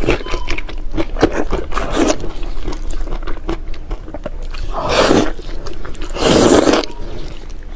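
Close-up wet eating sounds of a person biting, chewing and sucking on saucy braised pork skin and fat, with many short mouth clicks and smacks. Two longer, louder sucking sounds come about five and six seconds in.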